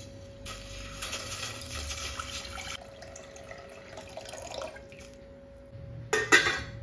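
Water poured from a glass jug splashes into a stainless steel pot, loudest for the first couple of seconds and then quieter. Near the end a steel lid is set on the pot with a couple of sharp clanks.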